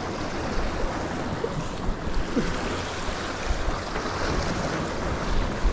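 Surf washing against jetty rocks with wind on the microphone: a steady wash of noise with no distinct events.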